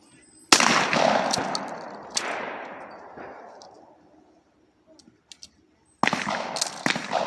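Shotgun shots at a skeet range: a blast about half a second in and another about six seconds in, each followed by a long echoing fade, with a further sharp report shortly after each. A few faint clicks come in the lull between.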